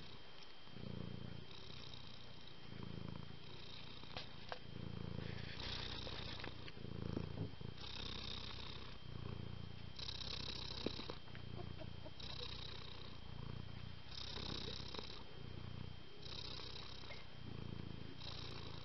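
Tabby cat purring steadily, the purr swelling and easing in a regular breathing rhythm about once every two seconds.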